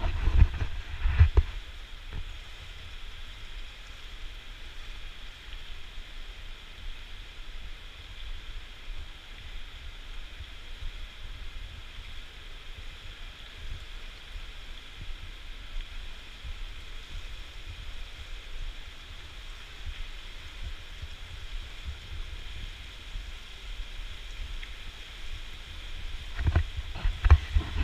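Indoor swimming pool hall ambience: a steady watery hiss, with low rumbling bumps in the first second or so and again near the end.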